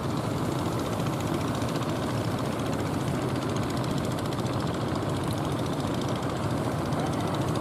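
An engine running steadily at idle: a low, even rumble with no change in speed.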